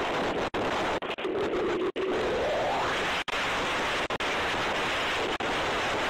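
Tornado-force wind rushing over a doorbell camera's microphone: a loud, dense noise broken by brief drop-outs, with a faint whistle rising in pitch about a second and a half in.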